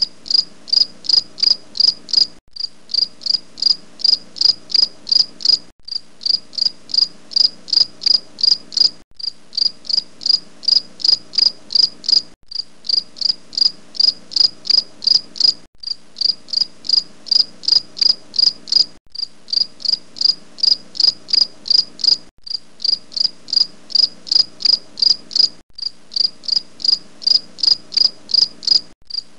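Insect chirping in an even, high-pitched pulse about three times a second, broken by a brief gap every three seconds or so.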